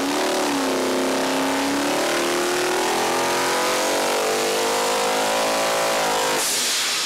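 Supercharged 406 small-block Chevy V8 with a belt-driven centrifugal supercharger making a full-throttle dyno pull, its pitch rising steadily as it sweeps from 4,000 to 6,500 rpm, then cutting off about six seconds in. As the throttle shuts, the blow-off valve vents the boost in a short burst of hiss.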